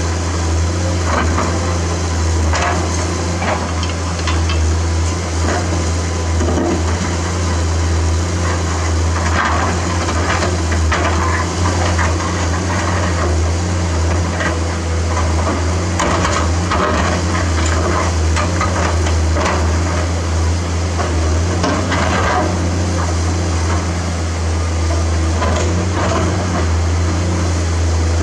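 Komatsu PC210-10 hydraulic excavator's diesel engine running steadily with a deep hum, while its bucket digs through rocky soil, with irregular knocks and clatter of stones throughout.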